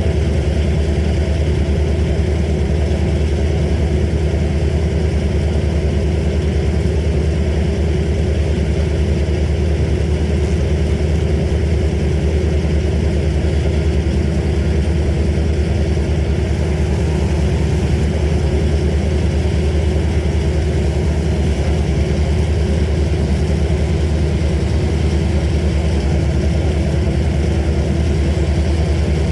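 A heavy engine on tree-service equipment running steadily at idle, with a deep, even hum that does not change.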